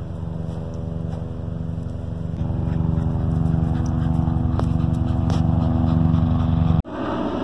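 A small engine running steadily, getting a little louder about two and a half seconds in, then cutting off abruptly near the end and giving way to a rushing, wind-like noise.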